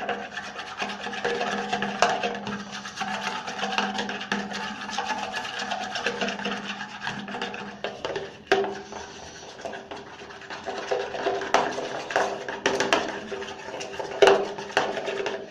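A small stick stirring and scraping thick shampoo around a small plate, a continuous rubbing with many quick clicks, as the shampoo is worked toward a slime consistency.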